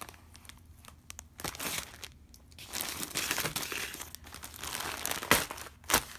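Plastic packaging crinkling and rustling in spurts as it is handled, with two sharp clicks near the end.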